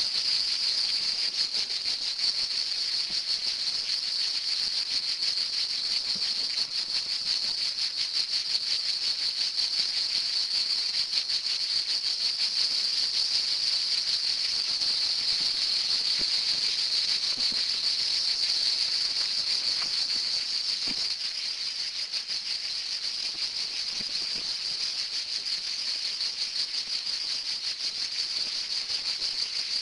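Loud, steady chorus of buzzing insects: a dense, high-pitched shrill that carries on without a break.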